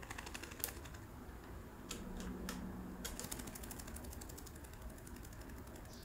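Fingers scratching through an African grey parrot's head feathers, heard as quick runs of fine ticks with a few sharper clicks in between.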